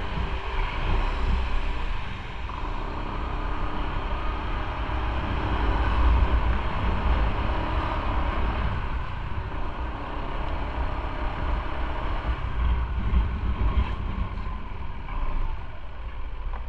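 Motorcycle on the move: a steady rumble of wind and road noise with the engine running underneath, level throughout with no sharp events.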